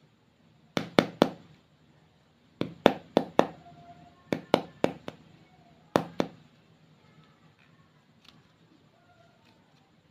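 Slime being worked by hand, giving sharp clicking pops in quick bursts of two to four.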